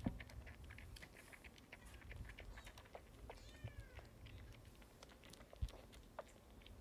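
Newborn kitten suckling at a nursing bottle: a quick, irregular run of small wet sucking clicks, with a faint, short high mew about three and a half seconds in.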